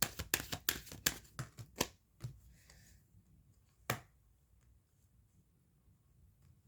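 Tarot cards being shuffled by hand, a quick run of sharp flicks and snaps for about two seconds. A single card snap follows about four seconds in.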